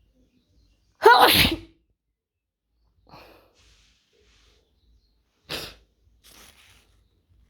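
A person sneezes loudly once, about a second in, with a falling voiced cry over the burst of air. A few fainter breathy bursts follow, the sharpest about five and a half seconds in.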